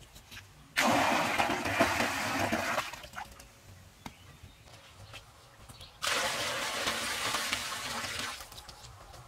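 Water poured from a clay pot splashing into a shallow pond, in two pours of about two seconds each: one starting abruptly about a second in, the other about six seconds in.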